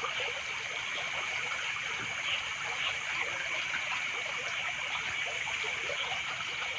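Shallow river water splashing and sloshing in small irregular bursts as someone wades and works an electrofishing probe through it, with a steady high-pitched hum behind.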